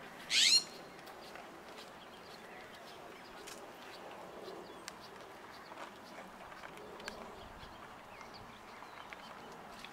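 A bird's short, high, rapid chirp about half a second in, the loudest sound here, followed by a low outdoor background with faint scattered ticks.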